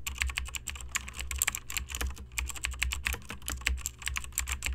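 Fast typing on a computer keyboard: a dense, irregular run of key clicks over a low steady hum.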